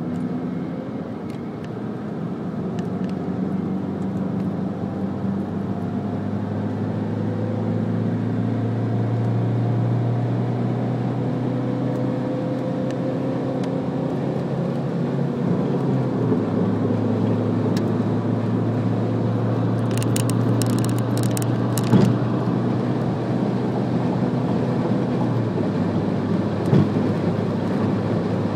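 Alfa Romeo MiTo's engine and road noise heard from inside the cabin under acceleration on track. The engine note climbs slowly and drops back about halfway through and again near the end, as at upshifts, with a short patch of ticking about two-thirds of the way in.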